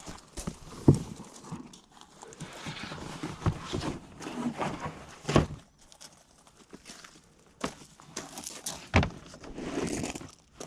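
Carpet being handled and fitted into a vehicle: rustling with scattered knocks and thuds, the loudest three spaced a few seconds apart.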